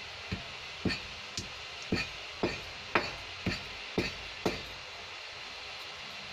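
Steel spoon knocking against the side of a steel pan of sugar syrup as it is stirred, about two clinks a second, stopping about two-thirds of the way through, over a steady hiss.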